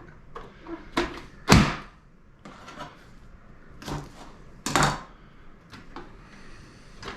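Hand-operated vegetable chopper being struck down onto chopped onion and red bell pepper: several sharp bangs at irregular intervals, the loudest about one and a half seconds in and another strong one near five seconds.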